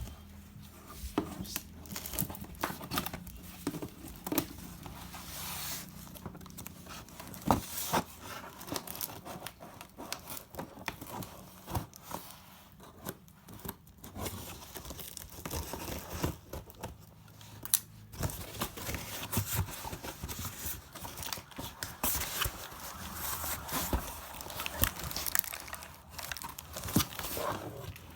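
Packaging being opened by hand: tearing and crinkling of wrapping, with irregular rustles and short sharp clicks and knocks throughout.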